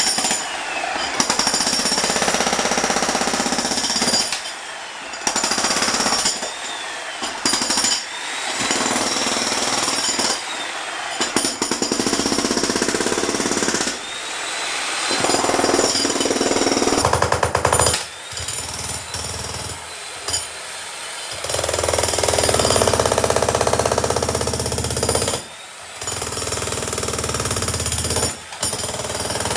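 Makita HM1810 electric breaker hammer (120 V, 15 A) pounding a concrete slab, running in long stretches with several brief stops where the trigger is let off.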